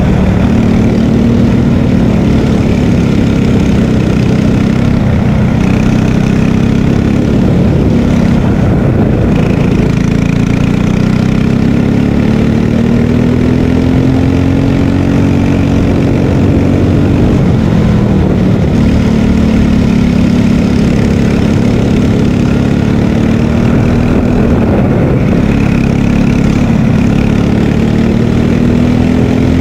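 Racing kart's single-cylinder engine running at full throttle, heard from on board, its pitch climbing slowly along the straights and dropping sharply a few times as the kart slows for corners.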